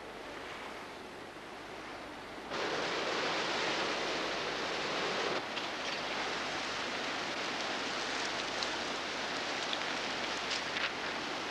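Fast, turbulent river water rushing steadily, stepping up louder about two and a half seconds in, with a few faint clicks in the second half.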